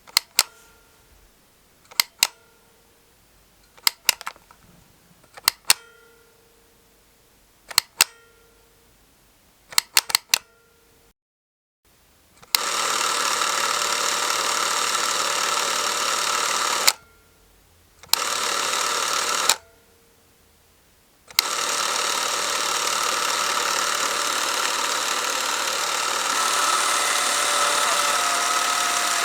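Porst Reflex ZR 422 Super 8 film camera: about six sharp clicks from its controls, roughly two seconds apart, some of them doubled. Then the camera's film drive runs with a steady whirr, stopping and restarting twice.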